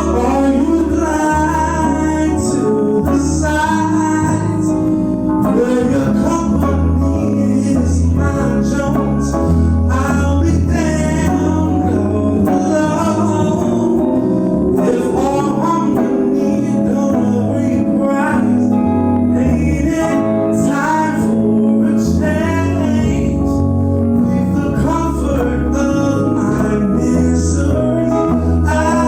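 Live band playing a song: guitar and bass with a sung vocal line, continuous and steady in loudness.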